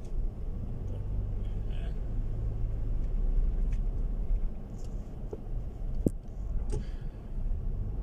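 Steady low rumble of a car's engine and tyres heard from inside the moving car on a bumpy road, with one sharp knock about six seconds in.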